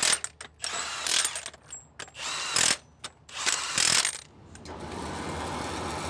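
Cordless impact wrench driving bolts into an excavator's final drive sprocket in four short bursts of hammering, about a second apart. From about five seconds in, a steady engine rumble takes over.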